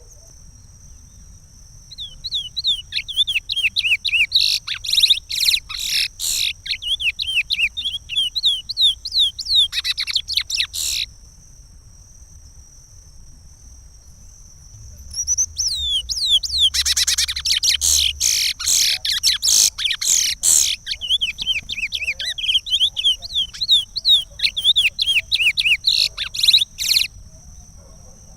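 Chestnut-bellied seed finch (curió) singing the Pará regional song: two long phrases of fast gliding whistled notes, with a pause of about four seconds between them. A thin steady high tone runs underneath.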